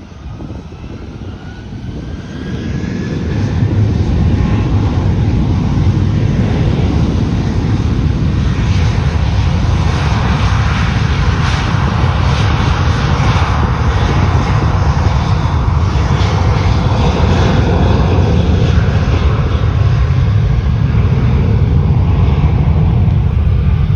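Southwest Boeing 737 jet taking off. The engines spool up with a rising whine over the first few seconds, then settle into a loud, steady rumble at takeoff thrust.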